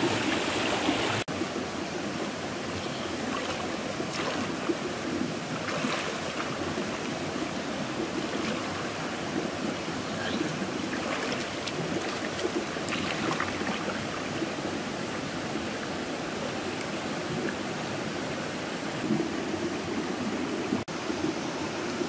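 River water rushing over and around rocks, with intermittent splashing as a person wades and moves through the water.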